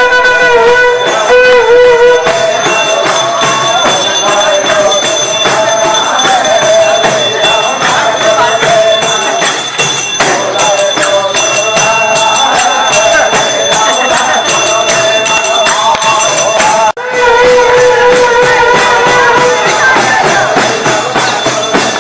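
Nepali panche baja band music: a sahanai (shawm) holding and winding a reedy melody over steady drum and jhyali cymbal strokes. The music breaks off briefly about seventeen seconds in, then resumes on a long held note.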